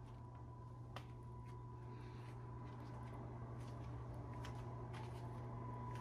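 Quiet room tone: a steady low hum with a faint high steady whine, broken by a few faint, irregular clicks, the clearest about a second in.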